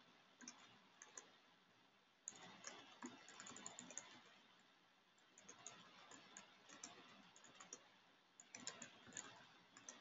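Faint typing on a computer keyboard: short runs of key clicks with pauses between, the busiest about two seconds in and again near the end.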